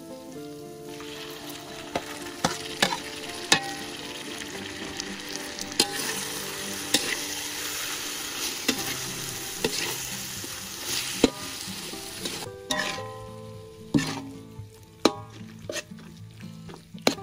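Minced pork, chilies and roasted eggplant sizzling in a hot wok while a metal spatula stirs and scrapes, with sharp clinks of the spatula against the wok. The sizzling dies down about twelve seconds in, leaving only the spatula's knocks.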